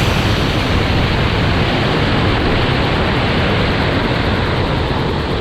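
Steady rushing road and running noise inside the cabin of a MK8 Ford Fiesta ST on the move, with no distinct engine note or turbo flutter standing out.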